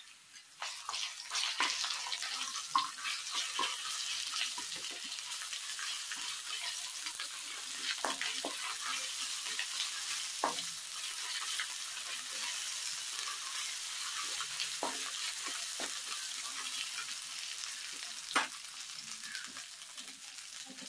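Onions, green chillies and curry leaves sizzling in hot oil in a kadai, the sizzle starting about half a second in as ginger-garlic paste is stirred in. A wooden spatula scrapes and knocks against the pan every few seconds.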